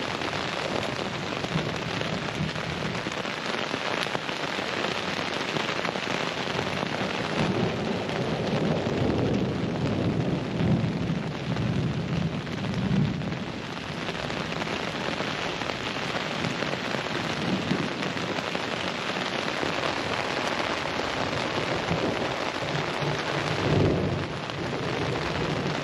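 Heavy rain falling steadily during a thunderstorm, with thunder rumbling low in two long rolls, one in the middle and a shorter one near the end.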